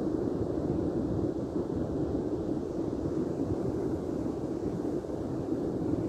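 Steady wind buffeting the microphone: a constant, unbroken low rumbling hiss.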